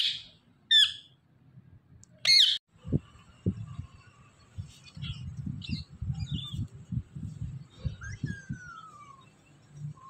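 Indian ringneck parakeets giving three loud, harsh screeches in the first two and a half seconds, then softer short chirps and a falling whistle near the end. Low knocks and thumps run under the later part.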